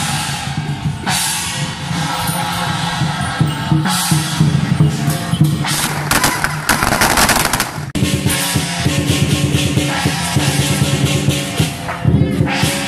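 Music with a heavy, steady drum beat. For about two seconds in the middle, a string of firecrackers crackles over it.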